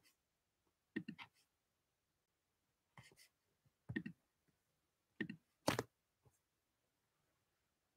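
Faint, scattered clicks and taps in a quiet room, in a handful of short clusters, the loudest near six seconds in.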